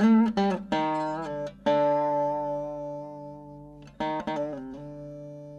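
Music played on a plucked string instrument: a run of quick plucked notes, then a chord left ringing and slowly fading, then a few more plucks about four seconds in.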